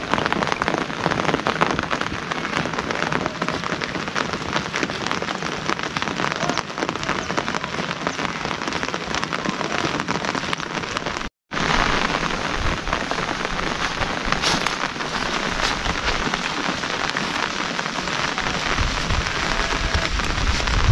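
Steady rain falling, a dense patter of drops that cuts out for a moment about halfway through.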